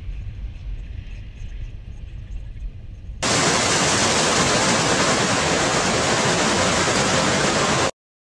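Automatic car wash tunnel: first a low, muffled rumble, then about three seconds in a sudden switch to the loud, steady hiss of water spraying over a car among the wash brushes, which cuts off abruptly near the end.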